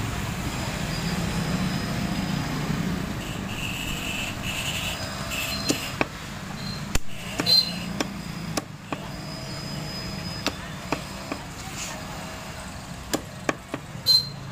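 Knife chopping raw chicken pieces on a wooden chopping block: about a dozen irregular sharp knocks from about six seconds in, over a steady low background hum.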